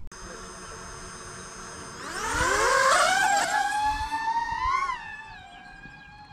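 DJI FPV drone's motors and propellers whining. A steady hum for the first two seconds, then about two seconds in the pitch and loudness climb sharply as the throttle comes up for takeoff. The whine holds with small wavers and rises briefly once more near the end.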